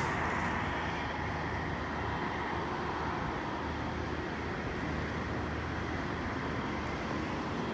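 Steady rumble of distant traffic, an even outdoor noise with no distinct events.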